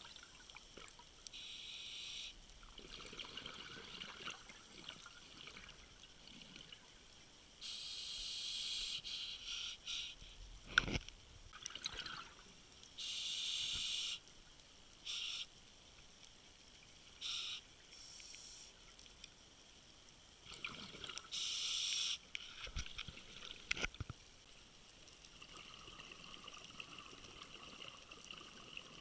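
Faint water sounds, splashing and trickling, with several bursts of louder hissy splashing that start and stop abruptly, and a couple of brief knocks.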